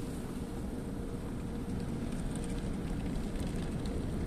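Automatic tunnel car wash heard from inside the car during the foam stage: a steady rumble of wash machinery and spray on the body, with a faint steady hum and light crackling ticks.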